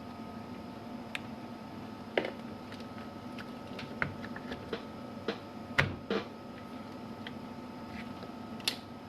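Scattered light clicks and taps of hands handling hardware, coming at irregular moments with the sharpest near the middle, over a steady electrical hum.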